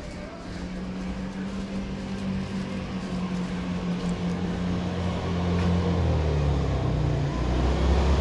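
Motor scooter engine approaching, a low steady hum that grows steadily louder.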